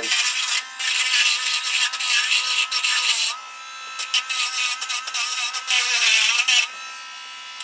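Tiny hand-held electric rotary grinder, Dremel-type, running with a steady high whine while its bit grinds corrosion off the aluminium trap tubing and coil-wire connection. It grinds in two long passes, with the motor whining alone for a moment between them and near the end.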